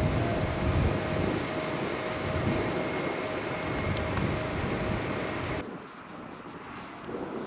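Airbus A320-214's CFM56 jet engines running loud, a dense rush of noise with a steady whine. About five and a half seconds in it cuts off abruptly, leaving much fainter noise.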